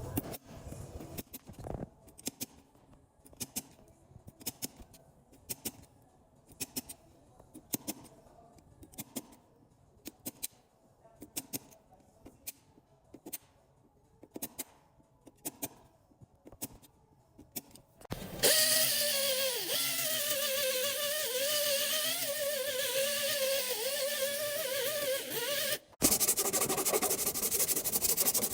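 Light, irregular taps on a car body panel for about eighteen seconds. Then a power tool starts, running with a wavering whine, and after a short break near the end a steady rasping like sanding.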